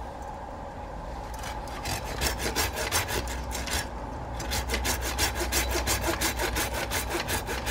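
Hand pruning saw cutting through a plum tree branch: a back-and-forth rasp that begins about a second and a half in and quickens to about four strokes a second.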